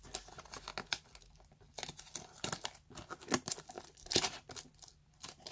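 Fingers picking and tearing at the wrapping of a cardboard trading-card box: irregular crinkling and crackling, with a few sharper snaps.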